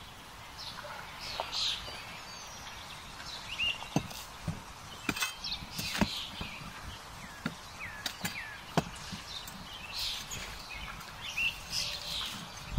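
Woodland birds chirping and calling over a steady outdoor background, with a few sharp knocks and crackles as a folding shovel pokes and shifts burning logs in a campfire.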